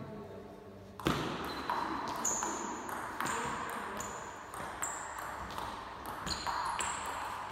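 Table tennis rally: the ball clicking sharply off the bats and the table in quick alternation, about two to three hits a second, starting about a second in. Each hit has a short high ping and echoes in a large hall.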